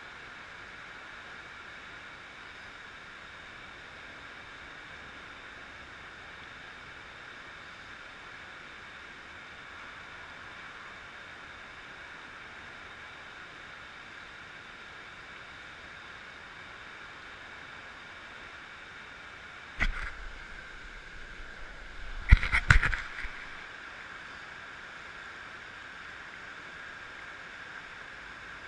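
Steady rush of a flowing river with small rapids. About twenty seconds in comes a sharp knock, and two seconds later a short cluster of loud splashes and knocks close to the microphone.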